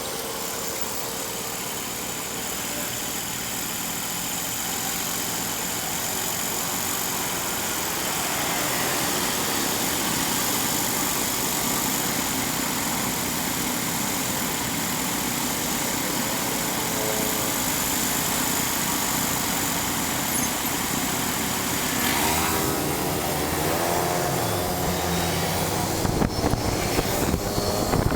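Steady road and wind noise outdoors, with a motor vehicle passing about 22 seconds in, its pitch sliding as it goes by.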